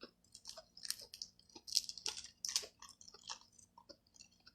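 Close-up chewing of chicken: irregular crunches and wet mouth clicks, several a second.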